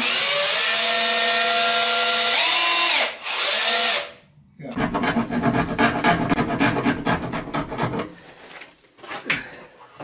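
Cordless drill running with a steady whine: it spins up, slows briefly and speeds up again near three seconds, then stops about four seconds in. After a short pause comes a rough, rattling scraping noise for about three seconds.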